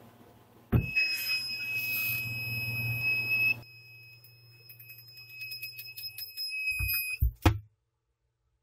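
A homemade door alarm's buzzer sounding one steady high-pitched tone, starting under a second in and loud for about three seconds, then fainter behind a rapid patter of clicks. A few knocks follow, and the sound cuts off suddenly near the end.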